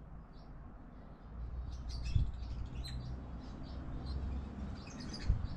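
Small birds chirping in short, quick calls again and again over a low steady rumble, with a dull knock about two seconds in.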